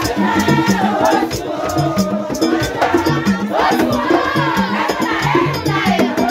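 A crowd singing together over a steady beat of drums and shaken rattles.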